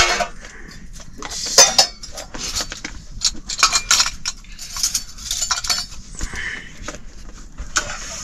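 Metal utensils clinking and knocking against pots and dishes: an irregular run of sharp clinks, the loudest right at the start and another about a second and a half in.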